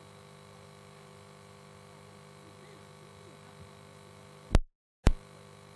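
Steady electrical hum made of several fixed tones, broken about four and a half seconds in by two sharp loud clicks half a second apart with a dead-silent dropout between them.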